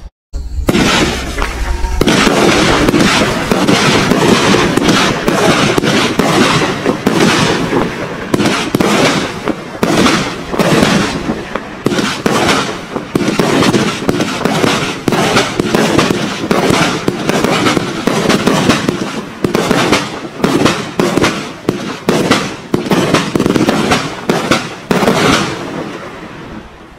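A 36-shot, 500-gram consumer firework cake firing: a loud, quick string of launches and aerial bursts, one after another, starting a moment in and tailing off near the end.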